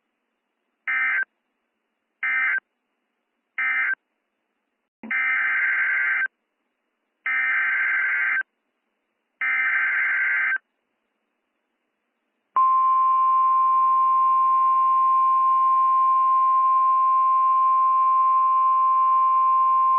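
Emergency Alert System data bursts: three short end-of-message bursts, then three longer SAME header bursts of about a second each. About 12.5 seconds in, the steady single-pitch 1050 Hz National Weather Service warning alarm tone begins.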